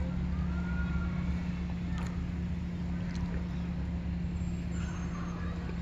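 Steady low drone of running machinery, with a constant hum. A couple of faint clicks come about two and three seconds in.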